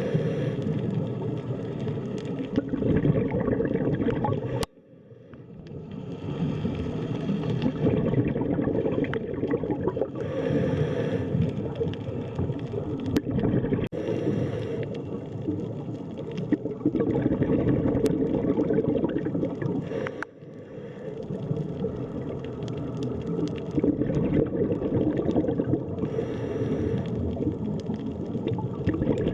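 Underwater ambience: a dense, low rush of water with gurgling and bubbling, brightening in a few brief passages. It cuts out suddenly twice, about five seconds in and again near twenty seconds, and fades back in each time.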